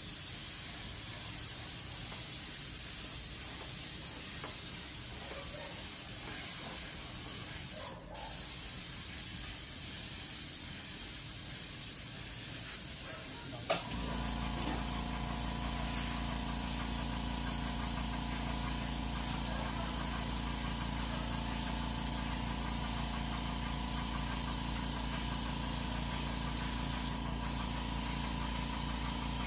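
Gravity-feed paint spray gun hissing as it sprays paint, with a brief break about eight seconds in. About halfway through, after a click, a steady low motor hum starts up and runs on under the hiss.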